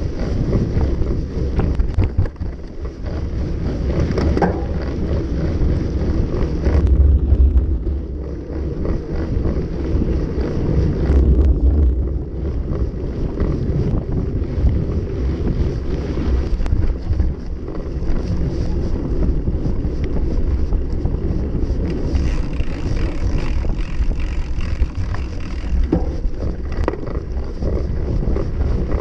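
Wind buffeting the microphone of a camera riding on a moving mountain bike, with a steady low rumble of tyres on a dirt track and occasional rattles and clicks.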